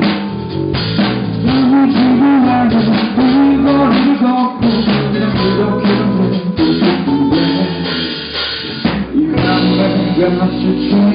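Rock band playing live in a club, an instrumental passage led by a drum kit, with bass and pitched instruments underneath.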